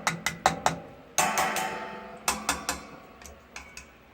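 Hard taps and clinks on the metal body of a Mainstays retro 8-inch table fan, showing it is all metal: a quick run of sharp taps, one longer ringing strike about a second in, then more taps that grow fainter toward the end.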